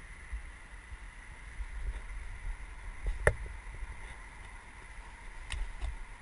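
Muffled low rumble of wind and movement on a helmet-mounted GoPro in its sealed housing as the mountain bike gets rolling, under a faint steady high whine. A sharp click comes about three seconds in, and a smaller one near the end.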